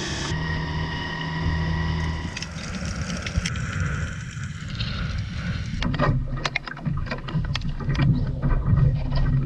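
Small outboard motor on an inflatable dinghy running steadily, with water splashing against the hull, until it stops about two seconds in. Later, from about six seconds in, irregular knocks and clatter of dive gear being handled on the dinghy.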